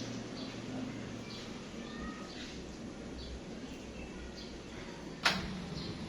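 Steady background hiss with faint, short high chirps scattered through it, and one sharp knock about five seconds in.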